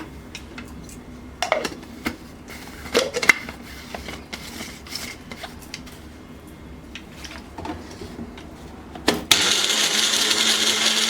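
A few clicks and knocks, then about nine seconds in an electric mixer grinder starts and runs loudly and steadily, grinding chopped amla with water into juice.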